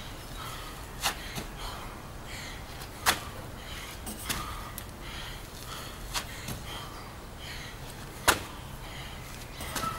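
Sharp slaps and thumps from a man doing burpees with a jump to an overhead pull-up bar: hands and feet hitting the ground and the bar, five hits in all, the loudest about three and eight seconds in.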